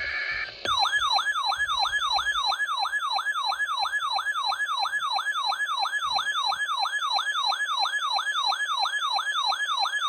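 A RadioShack weather radio's alert siren, a rapid run of falling electronic sweeps, about three a second, warning of a received severe thunderstorm warning. It is preceded by the brief end of a steady two-tone digital data burst, the SAME alert header.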